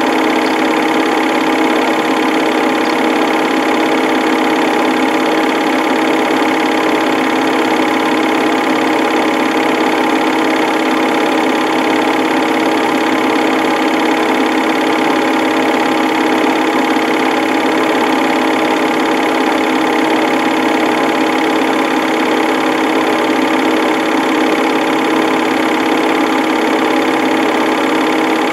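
Film projector running steadily: the even whir and clatter of its motor and film mechanism, with a constant hum.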